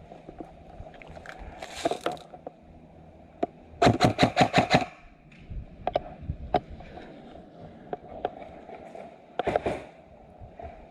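Airsoft gun firing: a rapid burst of about eight shots near the middle, shorter bursts around two seconds in and near the end, and a few single shots in between.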